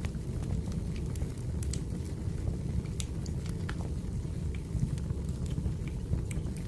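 Burning firewood crackling: irregular sharp pops and snaps over a steady low rumble of the fire.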